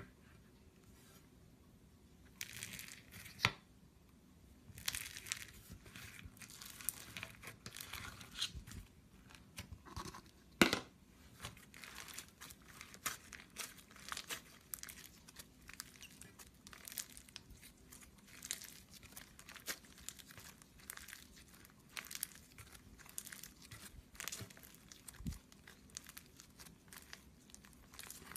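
Crunchy slime being squeezed and pressed by hand, giving dense, irregular crackles and pops, with one louder snap about ten seconds in.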